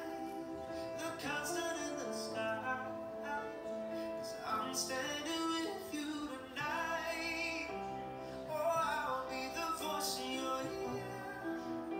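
A male singer singing to a live band with guitars, heard through a television's speakers.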